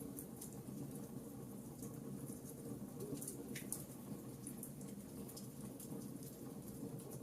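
Campfire burning with a steady low rumble of the flames and frequent small sharp crackles and pops from the burning wood.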